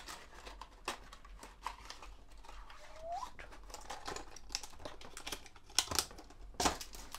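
Scattered light clicks and taps of fishing lures and their plastic packaging being handled, with a short rising squeak about three seconds in.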